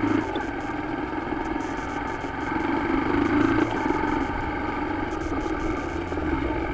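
Motorcycle engine running at low road speed, with wind and road noise on the bike-mounted camera; it gets louder a few seconds in, then eases off.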